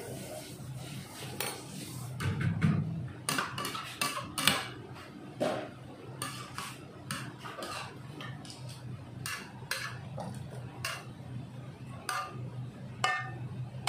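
Metal spatula and ladle scraping and knocking against a stainless steel wok as cooked kombu is scooped out, in irregular strokes over a steady low hum. Near the end come a few ringing metal clinks.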